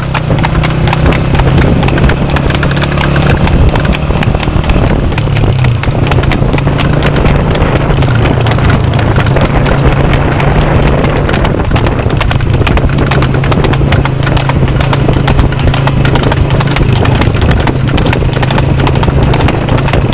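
A harnessed cart horse's hooves clip-clopping rapidly on asphalt at a fast trot, over a steady low hum.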